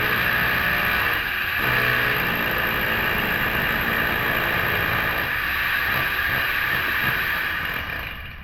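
Topshak rotary hammer drill hammering into a concrete floor. It dips briefly about a second in, then picks up again, and winds down near the end. The stall is blamed on the bit hitting a rock or gravel under the cement.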